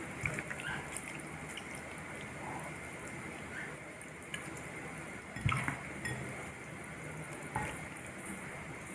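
Wet squishing of hands rubbing a spice-and-tomato marinade into raw chicken legs in a glass bowl, with a few light knocks against the bowl, the clearest about halfway through and another about two seconds later.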